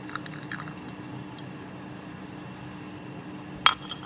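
Tea trickling from a teapot spout into a glass pitcher, dripping as the pot is emptied of its first rinse steep. A sharp clink comes near the end.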